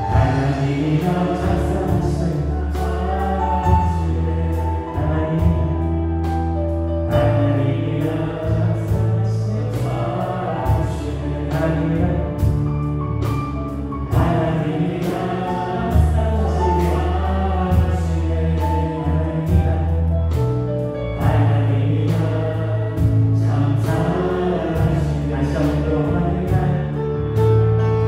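Live worship band playing a gospel praise song: drum kit, electric guitar, bass guitar and keyboards, with steady drum and cymbal hits under held bass notes, and voices singing along.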